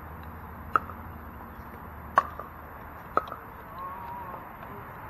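Pickleball paddles striking the plastic ball during a rally: three sharp pocks, roughly a second or so apart, the second the loudest.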